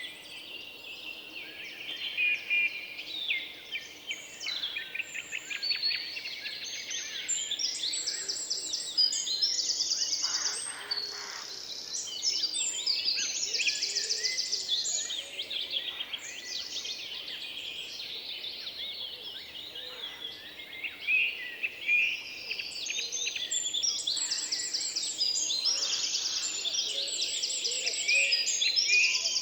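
Outdoor chorus of many overlapping songbird calls: high-pitched chirps, sweeps and fast trills, continuous throughout, captured by a trail camera's microphone.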